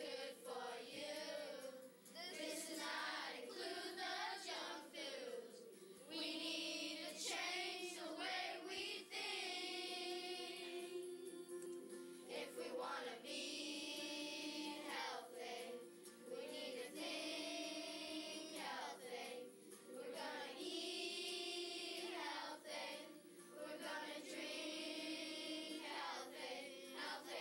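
Music: a song sung by a group of voices in chorus over a steady instrumental backing.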